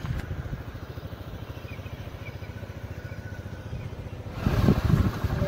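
Motorcycle engine running steadily with a low, rapidly pulsing rumble. About four seconds in, a louder rushing noise comes in over it.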